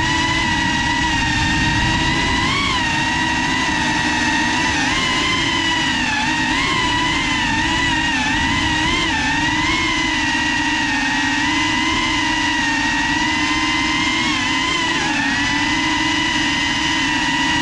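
Electric motors and propellers of a GEPRC CineLog35 cinewhoop FPV drone, recorded on its onboard GoPro: a steady whine that bends up and down in pitch as the throttle changes.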